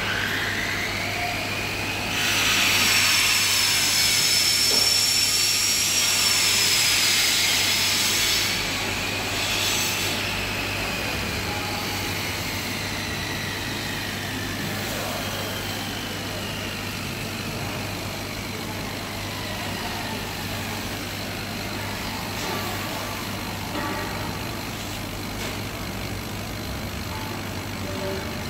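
STJ1390 130 W CO2 laser cutter cutting 20 mm acrylic: a steady low hum and hiss from the machine's air assist and extraction, with whining tones that glide up and down in pitch as the head moves along its cut paths. Louder for several seconds near the start.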